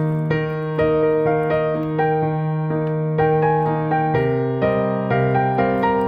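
Background music: a keyboard melody of evenly paced notes over a held bass note, which moves to a new note about four seconds in.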